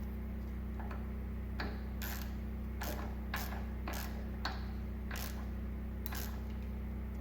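Light metallic clicks, about one every half second to a second, from a wrench turning a thread-taped air fitting into the tire machine, over a steady low hum.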